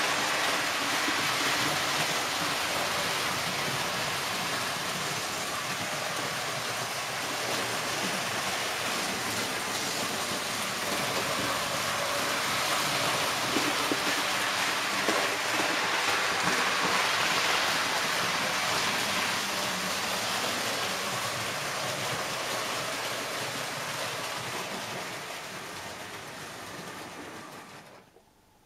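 Märklin H0 model train, a BR 103 electric locomotive hauling tin-plate TEE coaches with sliding pickup shoes, running on metal track: a continuous rattling running noise of wheels, pickup shoes and motor. It fades over the last few seconds and cuts off near the end.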